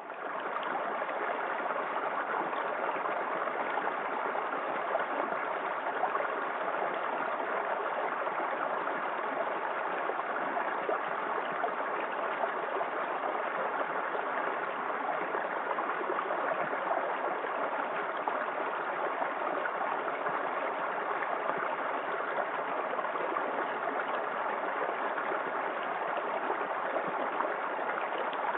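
Small waterfall in a forest creek: water pouring and splashing in a steady, unbroken rush.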